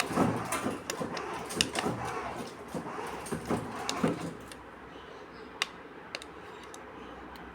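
Battery-powered ride-on toy car driving, its plastic wheels and body rattling and clicking over the floor. It stops about four and a half seconds in, leaving a couple of isolated clicks.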